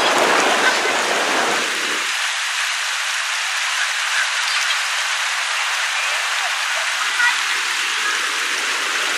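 Rushing water of a shallow, rocky river, a steady hiss of rapids. The deeper rumble drops away about two seconds in, leaving a thinner rush.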